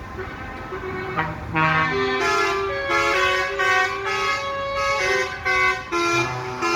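Several vehicle horns honking at once: long overlapping tones at different pitches, getting louder about a second and a half in.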